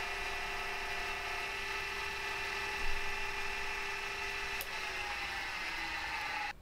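Milling machine with a carbide end mill taking a high-speed climb-cut finishing pass along the edge of steel angle iron: a steady whine of several tones. Its pitch sags slightly after about five seconds, with a single sharp click just before, and it cuts off suddenly at the end.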